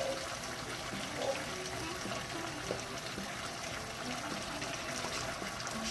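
Creme de leite (boxed cream) being poured into a hot pan of stroganoff sauce, a steady liquid trickling.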